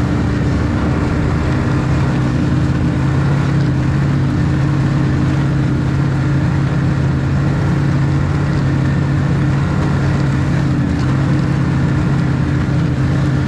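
Snowmobile engine running at a steady cruising speed, its pitch and loudness holding even throughout.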